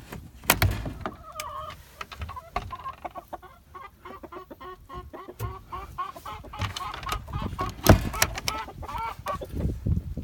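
Chickens clucking in a long run of short, repeated clucks, with a couple of sharp knocks, one just after the start and a louder one near the end.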